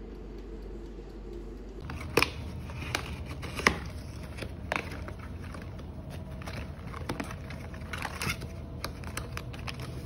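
A low steady hum for about two seconds, then a cardboard box being opened and plastic instant-coffee sachets inside it rustling and crinkling as one is pulled out. Several sharp clicks and taps, the loudest about two and three and a half seconds in.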